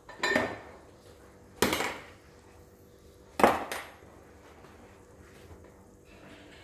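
Three sharp clattering knocks of kitchenware, about a second and a half apart, each ringing briefly.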